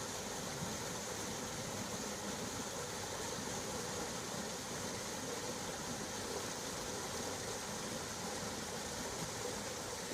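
Mountain river rushing, a steady, even wash of water.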